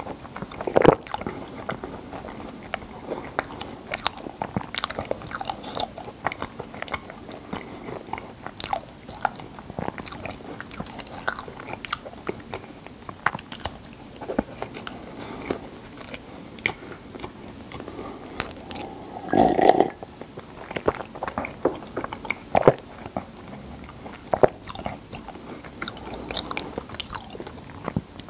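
Close-miked biting and chewing of sesame-coated kkulppang (glazed fried bread balls): a steady run of small crunches and sticky chewing, with one louder, lower sound about two-thirds of the way through.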